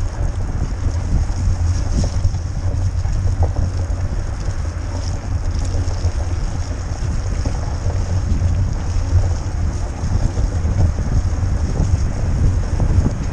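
Wind buffeting a camera microphone over the steady rumble of a mountain bike rolling over rough ground. The noise is loud and unbroken throughout, heaviest in the low end.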